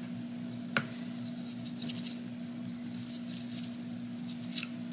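Low-pressure compressed air from a blow gun, fired in short, sharp hissing puffs in several quick clusters to clear a cleaned carburetor part, after a single click about a second in. A steady low hum runs underneath.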